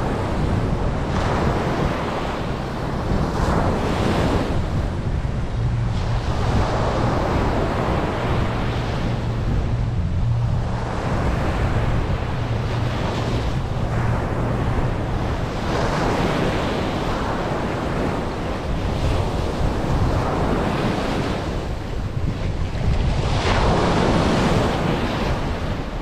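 Ocean surf breaking and washing up a sandy beach, the wash swelling and easing every few seconds over a steady low rumble.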